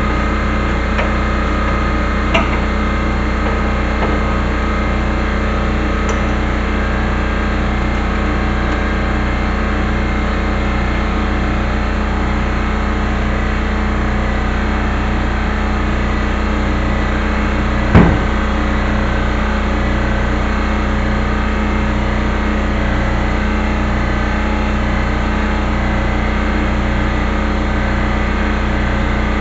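A steady machine drone with a regular low pulse runs throughout, and a single sharp knock comes about eighteen seconds in.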